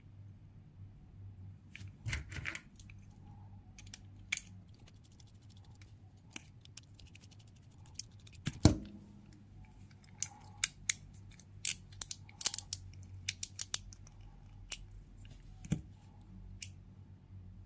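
Small metal clicks and taps from a metal EDC slider fidget being handled and unscrewed with a precision screwdriver. There is a louder knock about halfway through, then a quick run of sharp clicks.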